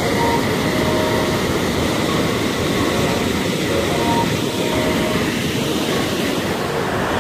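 Loud, steady rush of fast water cascading over concrete baffle blocks and churning white down a narrow spillway channel.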